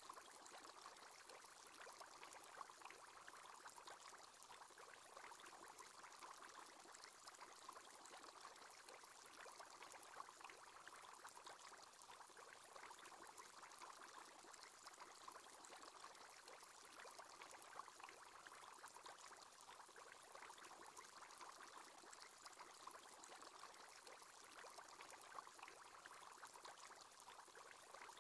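Faint, steady bubbling of an aquarium aerator's bubble column, a continuous fizz of small bubbles.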